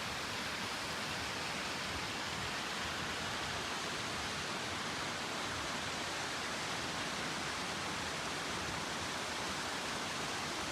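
Spahats Falls, a waterfall, rushing with a steady, even noise of falling water that does not change.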